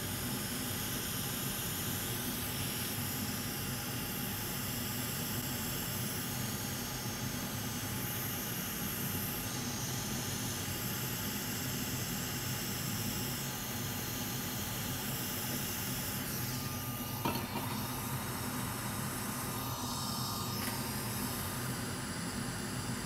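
Hot air rework station blowing steadily while it heats a small surface-mount diode to desolder it. There is a single click about seventeen seconds in.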